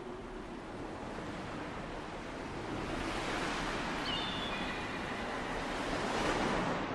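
Steady rushing noise, a wind-like outdoor ambience, growing a little louder near the end, with a few faint short high tones about four seconds in.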